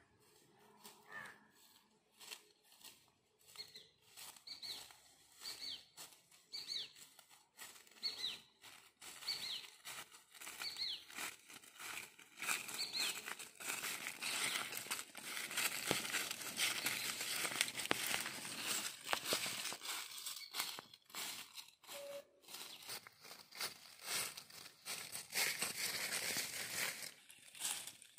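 Footsteps crunching and rustling through dry leaf litter, getting busier and denser in the second half. Over the first half a bird gives a series of short, high, falling notes, about one a second.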